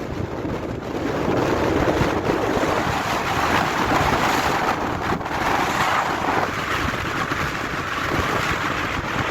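Nord-Ost, the Novorossiysk bora, blowing hard across the microphone: a loud, dense rush of wind that swells and eases without let-up. The speaker estimates its speed at about 30 m/s.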